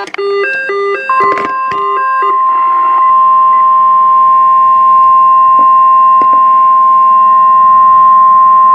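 NOAA Weather Radio 1050 Hz warning alarm tone: one loud, steady, unbroken tone starting about a second in, the signal that a warning message follows. Over the first two seconds it is preceded and overlapped by a quick run of stepped electronic beeps changing pitch several times a second.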